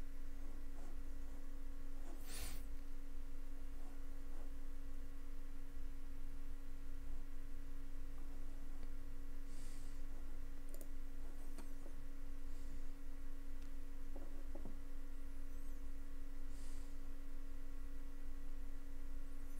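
Room tone with a steady electrical hum of several held tones, broken by a few faint clicks and three brief soft hisses.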